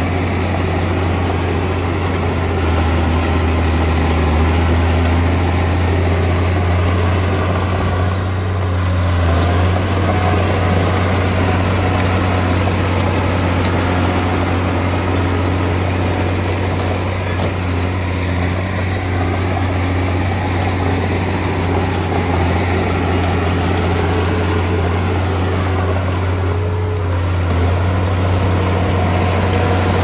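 Heavy diesel earthmoving machinery running steadily, a deep continuous engine hum with no breaks.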